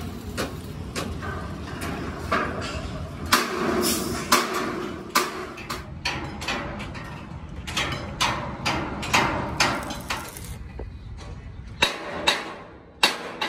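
Irregular hand-hammer blows on the sheet steel of a dumper body, roughly one or two a second, some ringing briefly.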